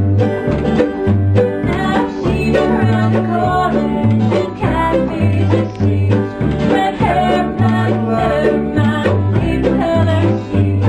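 Acoustic bluegrass string band playing a song together: upright bass plucking a steady bass line under strummed acoustic guitar, picked banjo and mandolin.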